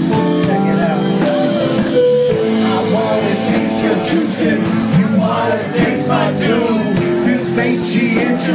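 Live band playing rock-funk music with electric guitar and drums, amplified on a club stage.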